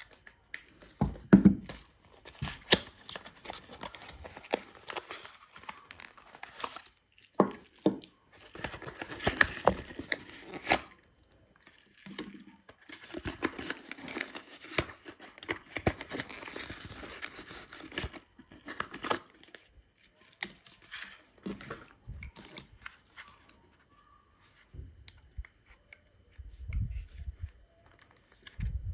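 Unboxing handling noise: a paper sleeve and a white cardboard box rustling and crinkling as they are pulled open, in irregular stretches with scattered sharp clicks. Near the end come a few dull low knocks as the pocket gimbal camera is handled over the table.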